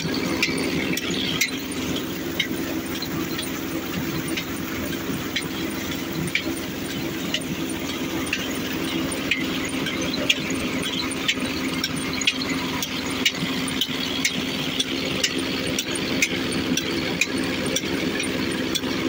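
New Holland tractor's diesel engine running steadily under load, belt-driving a bore-well water pump, with a sharp click about once a second.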